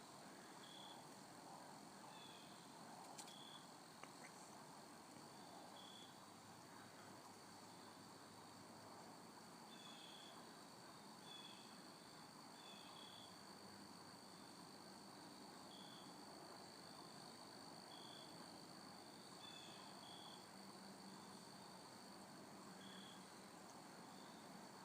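Near silence: faint woodland ambience with a steady high insect drone and short, high chirps every second or two.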